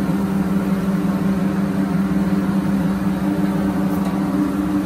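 Steady mechanical hum of commercial kitchen equipment, the ventilation and gas flat-top griddle running, with an even hiss over it as a masala dosa cooks on the hot griddle.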